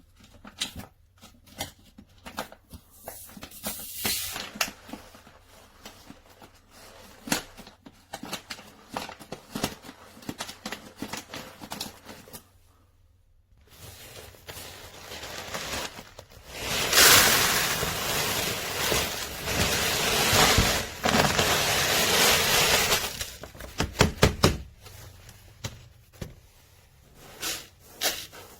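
Tofu and corn pellet cat litter shifting and rattling: scattered small clicks of granules, then a loud, steady rush of pellets for about six seconds past the middle, and a few sharp clicks after it.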